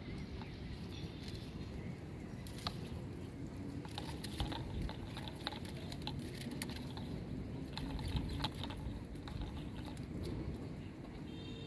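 A steady low rumble with scattered light clicks and taps from a plastic-bottle fishing hook rig being handled.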